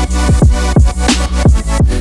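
Background electronic dance music with a steady, fast beat of deep kick drums and a sustained bass.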